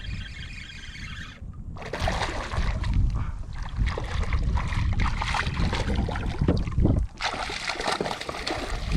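Water sloshing and splashing against a kayak, with irregular splashes over a steady low rumble of wind on the microphone.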